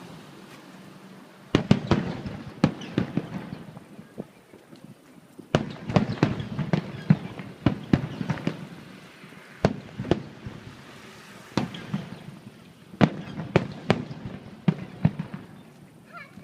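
Fireworks display: volleys of sharp bangs and crackling reports, coming in bursts every few seconds with brief lulls between them.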